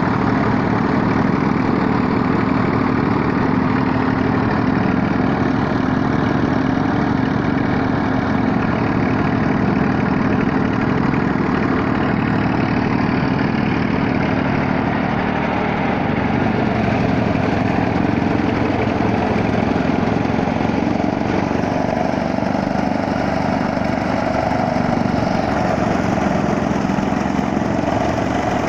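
Chaff cutter (fodder-chopping machine) running steadily, a continuous loud mechanical drone with no pauses.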